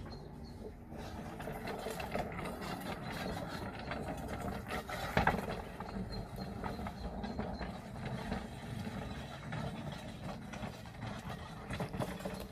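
Ride-on garden railway train running along the track, a steady mechanical rattle with scattered clicks of the wheels over the rails and one sharper knock about five seconds in.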